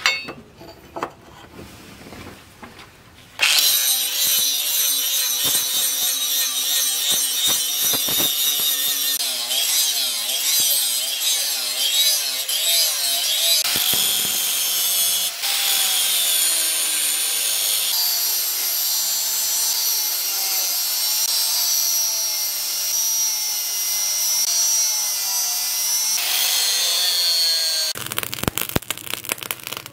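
Handheld angle grinder grinding a steel cleaver blade, starting about three seconds in: a loud, steady grinding hiss whose motor whine wavers in pitch as the disc bites into the steel. It stops shortly before the end, leaving a few scattered clicks.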